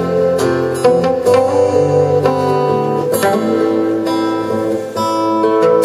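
Instrumental folk-rock: two acoustic guitars strummed in a steady rhythm over sustained notes from an electronic keyboard.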